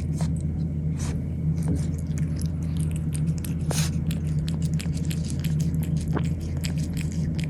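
A cat chewing and eating food, with many quick irregular clicks of chewing. A steady low hum runs underneath.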